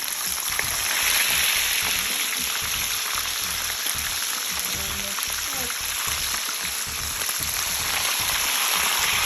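Fish for escovitch frying in hot oil: a steady, dense sizzle.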